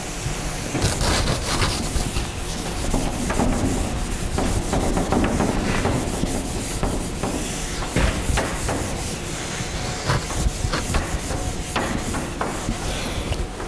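Whiteboard eraser wiping a whiteboard clean: a dry scraping rub in many quick back-and-forth strokes.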